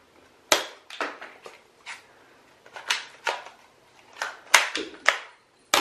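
About a dozen sharp plastic clacks at irregular intervals: spring-loaded toy foam-dart blasters firing and the darts striking the plastic targets of a shooting tower.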